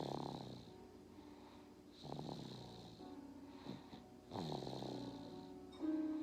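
A sleeping baby snoring, one snore about every two seconds, three in all.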